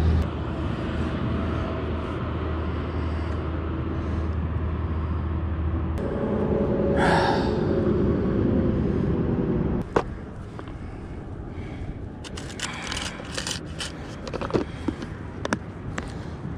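Fishing line being handled by hand while the rig is retied after a break-off: scattered small clicks and scrapes in the second half, after a sharp click about ten seconds in. Before that, a steady rushing background noise with a low hum, louder from about six to ten seconds.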